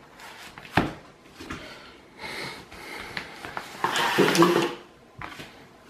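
Rustling of a thin white packaging sleeve and cardboard box packaging being handled and pushed aside on a wooden table. There is a single sharp knock about a second in, and the rustling is loudest a little past the middle.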